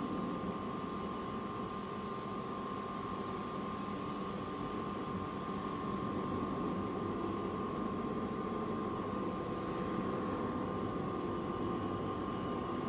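Hydraulic hose crimping machine's electric motor and pump running steadily under load as the dies press a hose fitting: an even hum with a constant high whine.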